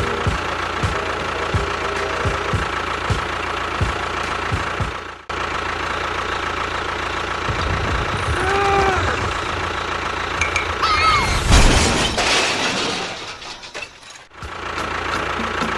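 A small engine running steadily with a low knocking rhythm. It cuts off abruptly twice, and a louder burst of noise with short squeaky rising-and-falling tones comes past the middle.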